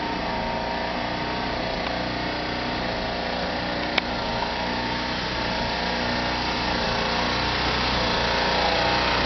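Small engine running steadily at an even speed, growing slowly louder, with a single click about four seconds in.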